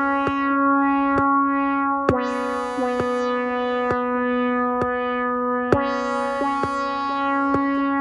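Ambient synthesizer beat made from sampled Minimoog Model D sounds played back on an MPC Live 2. A sustained synth note swells and brightens every few seconds, over a steady pattern of short percussive hits about once a second.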